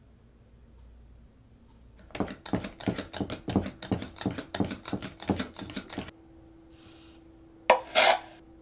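A whisk beating in a mixing bowl, quick even clinks of the wires against the bowl for about four seconds, starting about two seconds in. Near the end come two sharp knocks close together.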